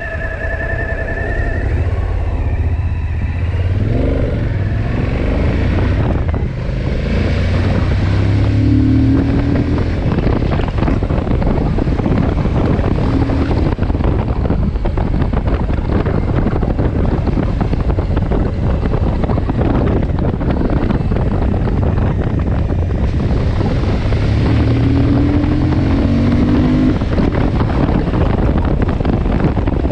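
Suzuki V-Strom motorcycle engine running on the move, with heavy wind noise on the microphone. The engine pitch rises twice, once about a third of the way in and again near the end, as the bike pulls.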